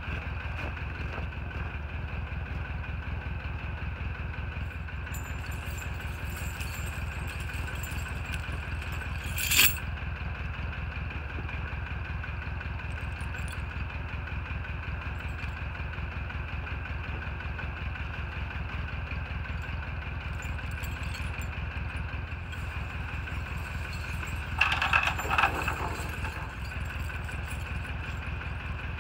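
An engine idling steadily throughout, with a sharp metallic clink about ten seconds in and a burst of rattling near the end as heavy steel tire chains are handled and dropped on the snow.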